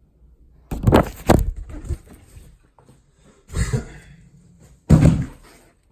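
Camera boxes and packaging being handled during an unboxing: three bursts of rustling and bumping, about a second in, at about three and a half seconds, and near the end.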